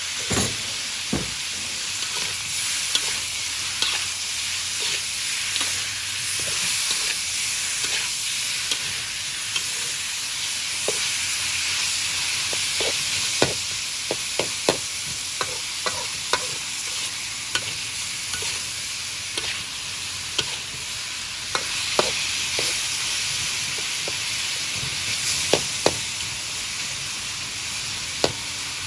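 Pork belly sizzling in hot fat in a steel wok, with a metal spatula clinking and scraping against the pan at irregular moments as the meat is stirred.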